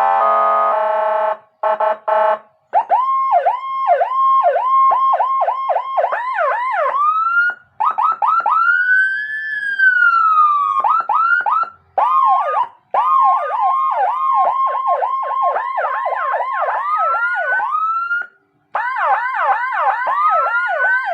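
Whelen dual-tone 400-watt police-escort electronic siren cycling through its tones. It opens with short chopped horn blasts, then a fast yelp with two overlapping tones, a slow wail rising and falling about a third of the way in, and fast two-tone yelps again, quickening near the end.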